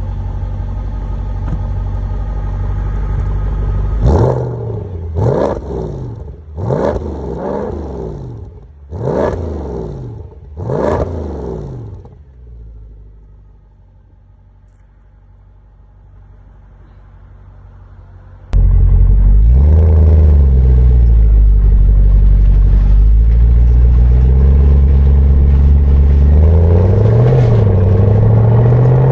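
Mercedes-AMG S63's V8 idling, then blipped five times in quick succession, each rev rising sharply and falling back in pitch. After it settles quietly, the sound cuts abruptly to a loud, steady engine note whose pitch drifts slowly up and down as the car is driven.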